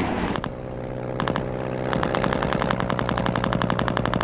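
Rapid machine-gun fire, a fast, even stream of shots starting about a second in, over a steady low drone.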